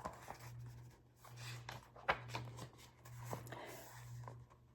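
Faint paper rustling with a few sharp clicks as a picture book's pages are turned and handled.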